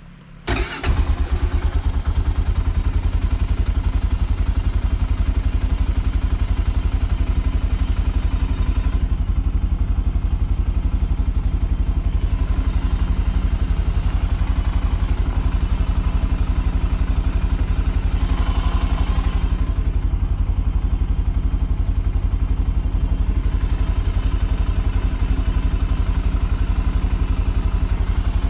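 2020 Arctic Cat Alterra 700 ATV's single-cylinder engine starting up within the first second, then running steadily with an even, fast low pulsing.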